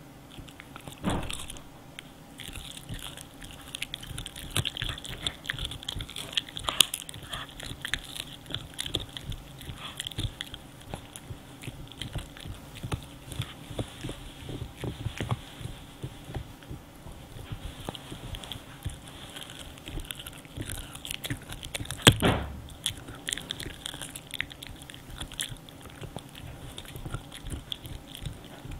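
French bulldog gnawing and crunching a hard cow-stick chew with its side teeth: a steady run of irregular crunches and wet chewing clicks, with two louder cracks, one about a second in and one about three-quarters of the way through.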